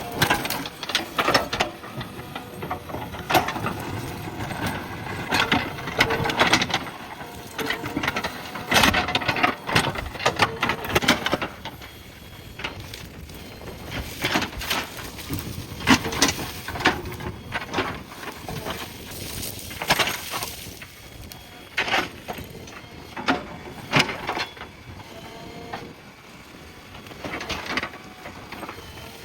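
Irregular cracking, snapping and crunching of bushes and branches being torn out and crushed by a backhoe loader's bucket, with loud cracks every second or two.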